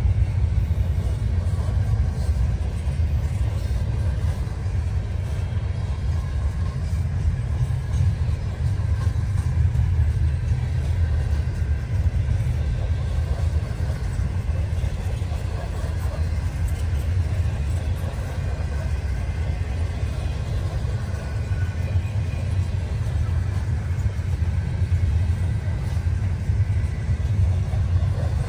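Freight train rolling past with a steady low rumble.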